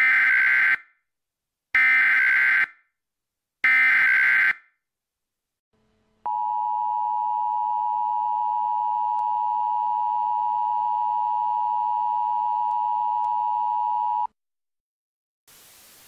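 Emergency Alert System tones. First come three short bursts of SAME header data, a buzzy digital warble about two seconds apart, which encode the Civil Danger Warning alert. After a short gap the EAS two-tone attention signal (853 and 960 Hz) sounds steadily for about eight seconds and cuts off sharply.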